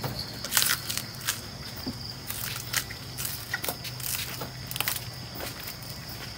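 Scattered crinkles and taps of a banana leaf being handled and folded into a stopper for a bamboo cooking tube, over a steady high insect drone.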